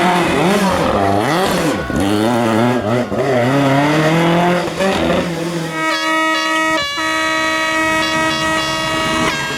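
Rally car engine revving hard, its pitch rising and falling repeatedly as it is blipped and pulled through the gears. About six seconds in, a loud steady horn blast takes over, broken briefly once and held almost to the end.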